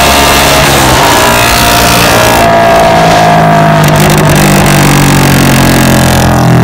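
Suzuki Raider 150 Fi single-cylinder four-stroke engine running loud through an open-pipe Vmax elbow exhaust header. The revs fall away over the first couple of seconds, then it settles into a steadier, lower note.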